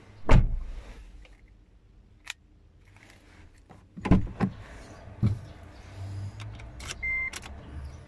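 Car key and keyring being handled at the ignition inside a Proton Saga cabin: a loud thump just after the start, then a run of knocks and key rattles about four to five seconds in. A short high beep sounds near the end as the ignition is switched on, before the engine is started.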